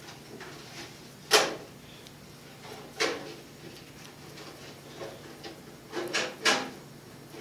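Handling noise while a clay sculpture is worked with a brush: a few separate sharp knocks and scrapes, the loudest about a second in and two close together near the end, over a faint steady hum.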